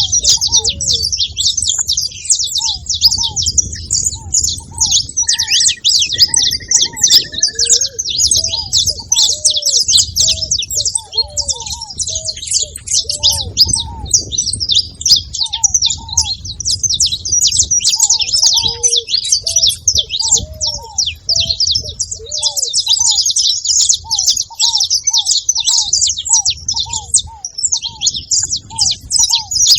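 A flock of saffron finches chirping and singing continuously in a dense, high chorus, with ruddy ground doves giving short low calls repeated about once a second.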